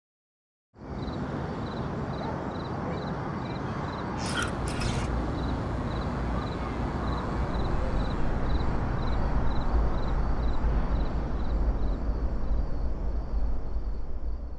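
Night-time outdoor ambience: a steady low rumble like wind, with a faint high chirp repeating about every half second, and a brief crackle about four seconds in.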